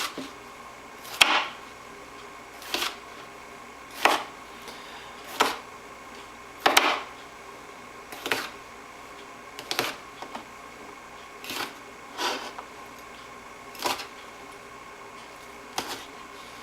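Kitchen knife cutting red pepper into chunks on a cutting board, each cut ending in a short sharp knock on the board, about one every second and a half.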